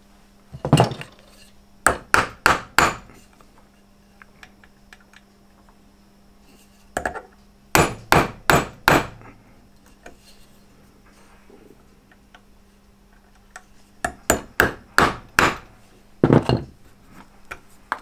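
Hammer tapping a small mild-steel punch into the end of a cable clamped in an aluminium block, splaying the cable strands open. Sharp taps come in quick runs of about four, three times, with pauses between.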